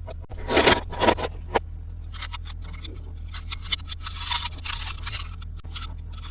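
Toy packaging being handled and unboxed, plastic and cardboard scraping and crinkling. Two loud scrapes come about half a second and a second in, followed by scattered small clicks and a longer scrape around four seconds in.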